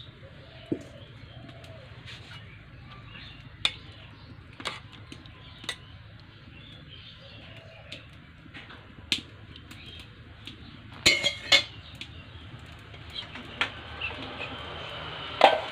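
Metal ladle knocking and clinking against an aluminium cooking pot as it stirs. The sharp knocks are scattered, with the loudest cluster about eleven seconds in.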